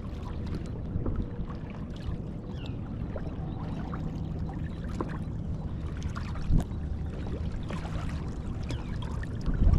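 Small water sounds lapping and trickling around a kayak hull, with scattered light ticks and two short knocks, one about six and a half seconds in and one near the end.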